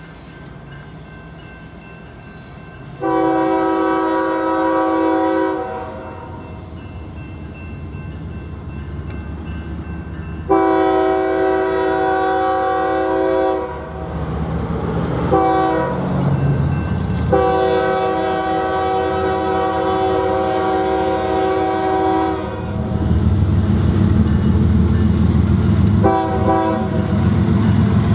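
A BNSF freight locomotive's air horn sounds the grade-crossing signal, long, long, short, long, with one more short blast near the end. The low rumble of the diesel locomotives swells over the last few seconds as they draw up and pass.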